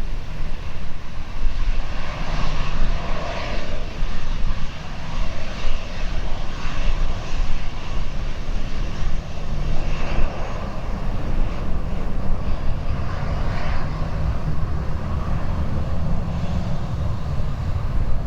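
Jet airliner engines running steadily, a continuous low rumble with a hissing roar over it.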